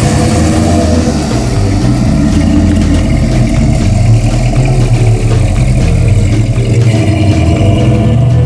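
A 1962 Ford Thunderbird's 390 cubic-inch V8 running as the car drives off at low speed, mixed with background music that has a bass line.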